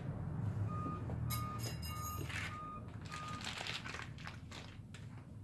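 A repeating electronic beep at one steady pitch, about one every half second, starting about a second in and stopping past halfway. Under it, the plastic of a frosting-filled piping bag crinkles as it is squeezed and handled.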